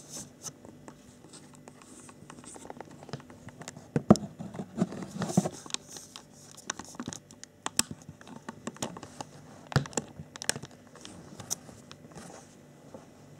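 Clear plastic bags holding RC model kit parts crinkling and rustling as they are handled, with scattered sharp clicks and knocks. The loudest are about four seconds in, around five seconds, and near ten seconds.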